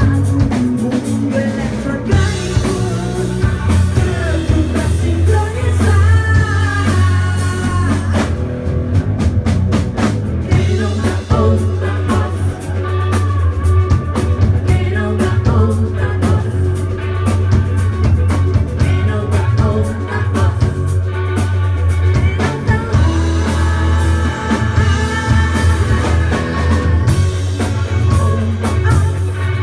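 Live rock band playing: electric guitars, bass guitar and drum kit, with voices singing over a steady, prominent bass line.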